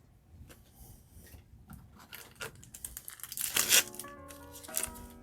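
Foil Yu-Gi-Oh booster pack wrapper being torn open and crinkled, in several short rips with the loudest about three and a half seconds in. Background music with held notes comes in about four seconds in.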